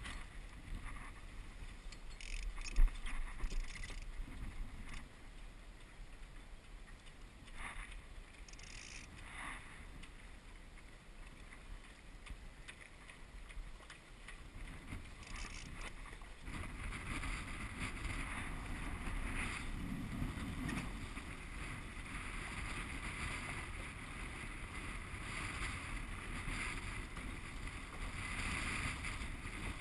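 Water sloshing and rushing along the hull of a Walker Bay 10 sailing dinghy under way, with a little wind on the microphone. There is a sharp knock about three seconds in, and the rush of water grows louder about halfway through.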